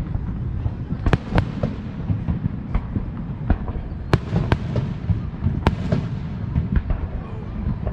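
Fireworks going off: a run of about a dozen sharp bangs and pops at irregular spacing over a continuous low rumble.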